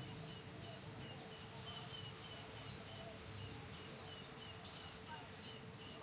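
Weaver birds chirping: short, high notes repeated several times a second, with a faint steady hum beneath.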